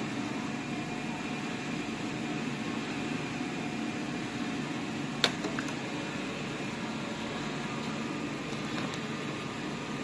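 Steady mechanical hum of machinery running in a PET bottle recycling plant, with one sharp click a little past halfway.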